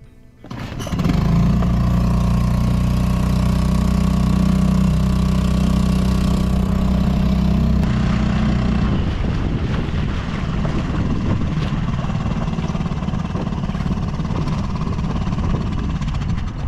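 The inflatable boat's 2-horsepower outboard motor running with a steady hum, coming in about a second in. About eight seconds in, the steady hum gives way to a rougher wash of water and wind noise as the boat gets under way.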